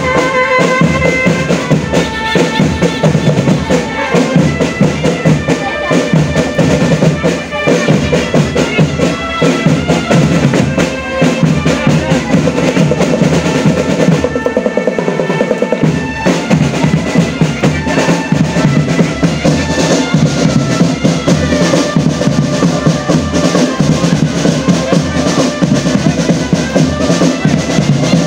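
Marching drum band playing: snare and bass drums beating steadily under a melody. The bass drums drop out for a moment about fourteen seconds in.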